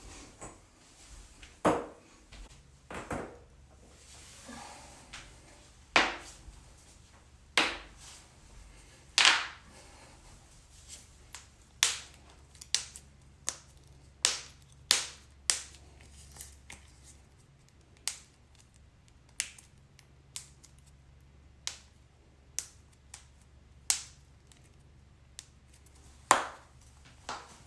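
Joint cracks and pops from chiropractic adjustments: a long series of short, sharp cracks at irregular intervals, a few much louder than the rest.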